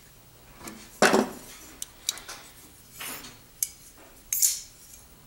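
Metal parts of a titanium framelock folding knife and a small screwdriver clicking and clinking against each other during hand assembly. There is a handful of separate sharp taps, the loudest about a second in.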